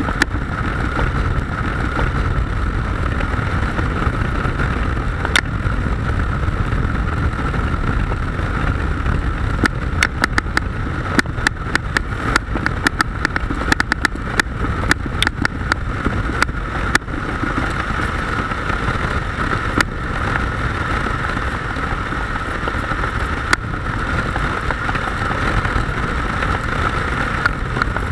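Motorcycle under way at steady speed: a constant engine and road drone, broken by scattered sharp clicks that come thickest in the middle and again near the end.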